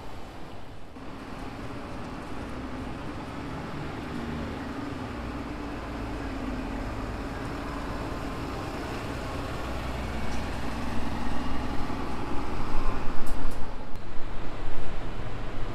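Diesel city bus engine running as the bus moves through the terminal forecourt, a steady low drone that grows louder in the last few seconds, with a few short sharp noises near the end.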